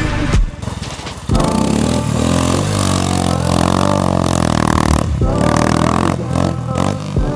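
Royal Enfield Scram 411's single-cylinder engine running and revving under a rider, dipping briefly early on before picking up again, mixed with background music.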